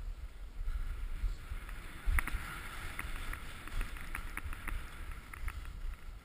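Skis carving and scraping over packed snow, with wind rumbling on the microphone. From about two seconds in the scraping turns rougher, with a run of sharp clicks.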